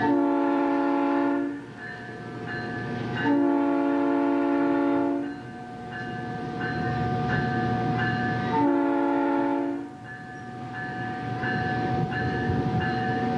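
South Shore Line electric commuter train's air horn sounding three blasts, two long and a shorter third, over the train's steady running noise: a warning for the cross streets while running down the middle of the street.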